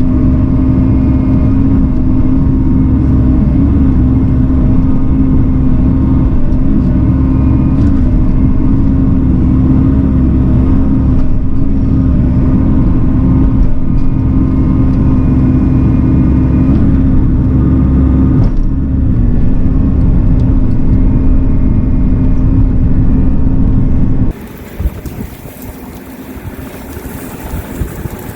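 Bobcat E42 mini excavator's diesel engine running loud and steady while working, with hydraulic strain and small knocks. Near the end it cuts to a much quieter outdoor sound of wind on the microphone with a few knocks.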